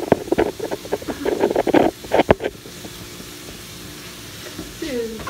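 Close clatter and knocks from hands working right by the phone's microphone, loudest in the first two and a half seconds, over a steady hiss of cubed luncheon meat frying dry in a skillet. A short falling squeak comes near the end.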